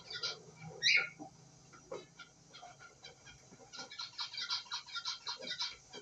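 Newly hatched cockatiel chick begging: rapid trains of short, high cheeps at about five a second, at the start and again through the second half, with one louder, sharper chirp about a second in.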